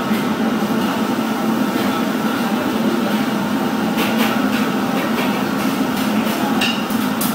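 Steady mechanical hum and rush of commercial kitchen machinery, with a low drone that holds level throughout. A few faint clicks come about four seconds in and again near the end.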